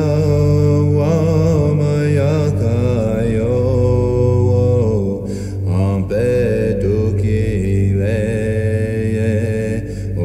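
Wordless chanted singing in a Native American style, the voice gliding and wavering in pitch over a low, steady bass, as part of a rap track.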